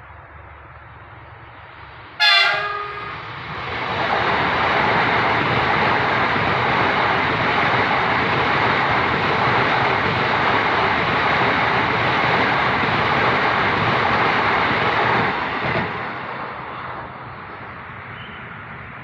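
KRL commuter electric train sounding a short horn blast that drops in pitch, then passing close by with a loud, steady train noise for about twelve seconds before fading away.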